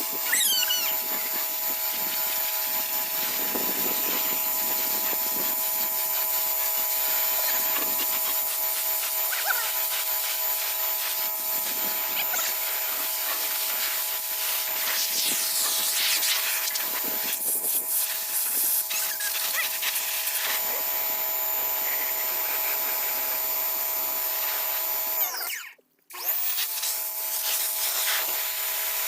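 Pressure washer running and spraying with a steady whine and hiss, cutting off sharply for a moment about 26 seconds in, then starting again.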